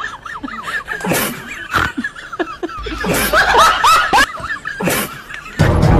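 Snickering laughter, with high wavering squeaky tones. Music starts abruptly near the end.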